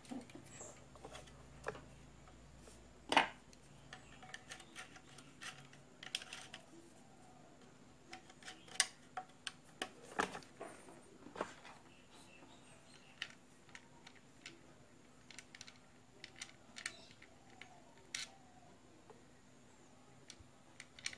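Scattered small clicks and taps of a plastic electric blower housing being handled and screwed back together, the sharpest about three seconds in and about ten seconds in.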